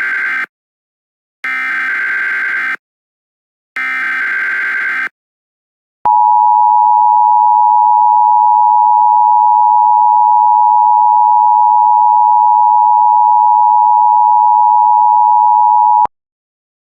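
Emergency Alert System alert tones. Three rasping digital data bursts of about a second each (the SAME header) are followed by the EAS attention signal, a loud, steady two-tone alert held for about ten seconds that cuts off abruptly. Together they announce an incoming emergency message.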